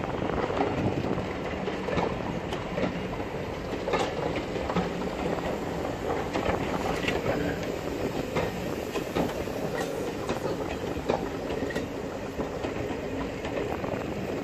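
Passenger train coaches rolling past, a steady rumble with the wheels clicking irregularly over the rail joints.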